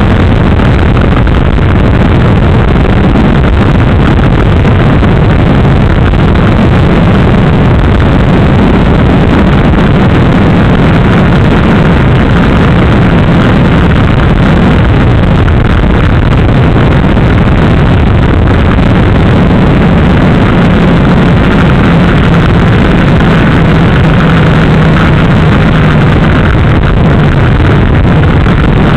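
Motorcycle engine running steadily at cruising speed, picked up loud by a camera clamped to the frame right next to the engine block.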